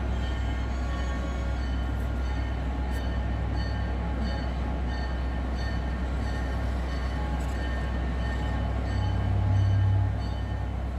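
Diesel locomotive idling with a steady low rumble, which swells briefly near the end.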